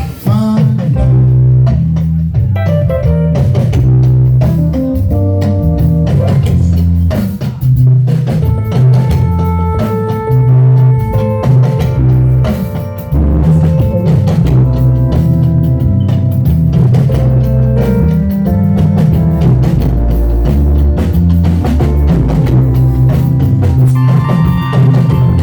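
Live church band playing an upbeat instrumental with drum kit, bass guitar and guitar keeping a steady beat.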